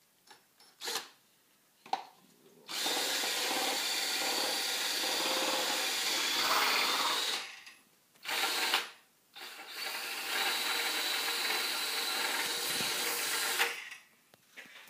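Cordless drill spinning a homemade PVC-pipe apple grinder drum studded with screw teeth, grinding apple. Two short trigger blips, then a steady run of about five seconds, another short blip, and a second run of about four seconds that stops near the end.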